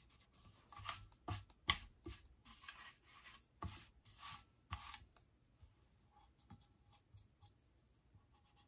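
Pencil eraser rubbing out pencil guide lines on a tumbler, in short, faint, irregular scrubbing strokes, mostly in the first half, then only a few light touches.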